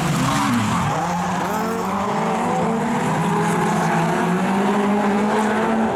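Several Supernational-class (over 2150 cc) rallycross cars racing as a pack, their engines revving hard with several engine notes rising and falling over one another.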